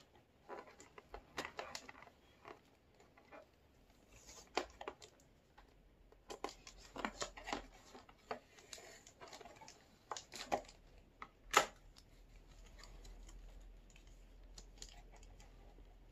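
Plastic toy packaging and tape being handled and pulled apart: irregular crackles, rustles and short tearing sounds as a cardboard display background is worked out of its plastic tray, with one sharp snap about two-thirds of the way through.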